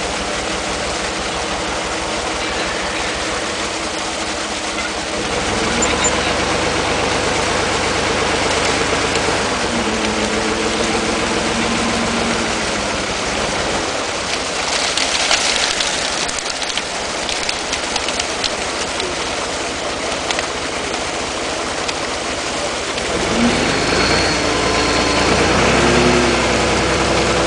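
Truck engine running steadily, its revs rising and falling several times as it drives the hydraulic crane lifting a basket of carp out of the pond. A short rush of splashing water comes about halfway through.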